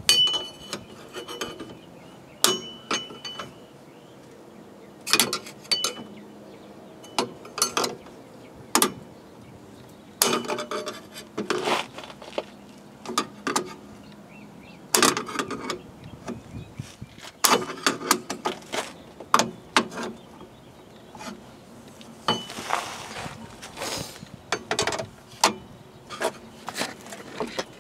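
Screwdriver and hand tools prying and scraping on the rear drum-brake hardware, working the metal shoe bars out of their holes: irregular metallic clinks, clicks and scrapes, a few ringing briefly.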